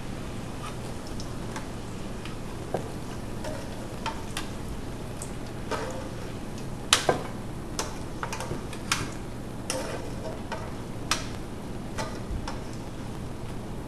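Scattered light clicks and clinks of kitchen utensils and dishes, irregularly spaced, with one sharper knock about seven seconds in, over a steady low hum.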